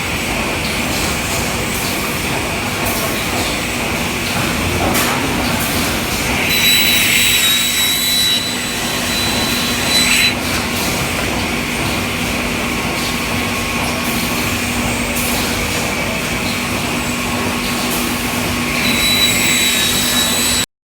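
Automatic CNC pipe-cutting circular saw running with a steady motor hum and hiss. A high whine with harsher noise rises twice, about seven seconds in and near the end, with a short sharp burst around ten seconds. The sound cuts off suddenly just before the end.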